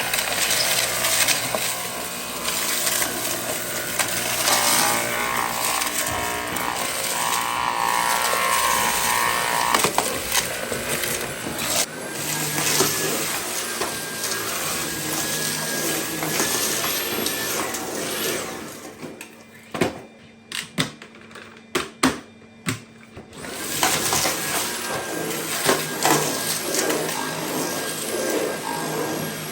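Dyson V8 cordless stick vacuum running steadily while vacuuming debris. A little past the middle it cuts out for about five seconds, with a few sharp knocks, then runs again.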